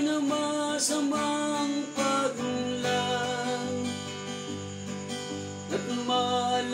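Acoustic guitar strummed in a steady rhythm, with a man's voice singing along at times.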